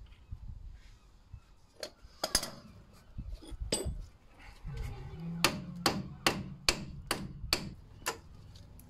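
A hammer striking metal seven times, about two blows a second, over a low steady hum, after a few scattered clinks of tools in the first seconds.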